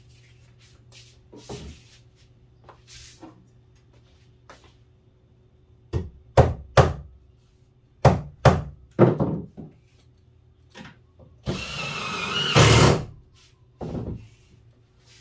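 Several sharp knocks on the wooden countertop in two quick groups, then a cordless drill runs for about a second and a half, driving a screw into the wood and getting loudest just before it stops.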